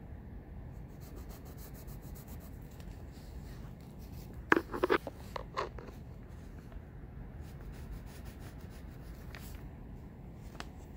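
Wooden pencil scratching softly on lined notebook paper in short sketching strokes. A brief cluster of louder knocks comes about four and a half seconds in.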